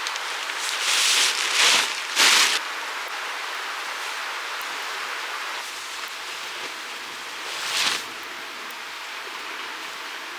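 Nylon ground sheet rustling and crinkling as it is pulled from its stuff sack, three bursts in the first few seconds, over a steady hiss. One more short rustle comes near the end.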